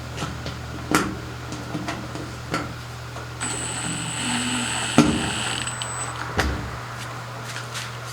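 Scattered clicks and knocks of tools and screws being handled while a washing machine drain pump is fastened in, over a steady low hum. About three and a half seconds in, a hissing stretch with a thin high whine runs for a couple of seconds, broken by a sharp knock.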